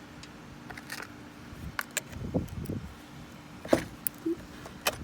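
Sharp metallic clicks and clinks of hand tools and battery terminal hardware being handled, five or six separate ones, over a steady low hum.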